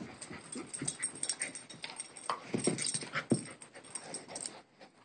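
A dog moving about on carpet, with short irregular breathing sounds and light clicks and rustles, going quieter near the end.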